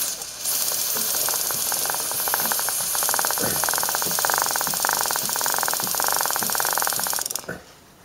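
Aerosol chain lube spraying in a steady hiss onto a motorcycle drive chain as the rear wheel is turned, with the chain's links ticking rapidly past the nozzle. Both stop abruptly a little before the end.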